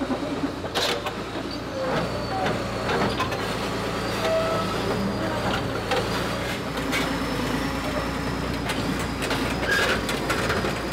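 Liebherr R942HD excavator tracking slowly, its Deutz diesel engine running steadily under the clanks of the steel crawler tracks, with a thin high squeal drawn out over several seconds.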